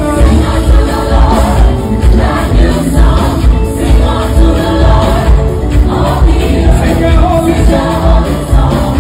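Gospel music: a choir singing over a band with a steady, heavy bass beat.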